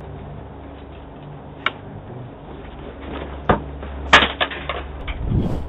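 Sharp clicks and knocks picked up through a doorbell camera's microphone over a steady low hum. A single click about a second and a half in and a knock at about three and a half seconds lead to the loudest click a little after four seconds. A quick run of smaller clicks follows, then a low thud near the end.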